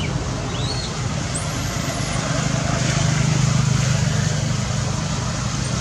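A motor vehicle's engine running steadily, its low hum growing a little louder about halfway through. A few short high chirps sound in the first two seconds.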